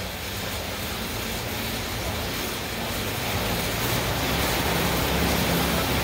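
Fan of an air-resistance exercise bike whooshing steadily as it is pedalled and pushed hard, growing gradually louder as it spins up.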